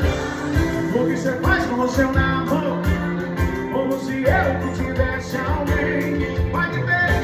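Pagode (Brazilian samba) music playing, with a voice singing over a steady percussion beat.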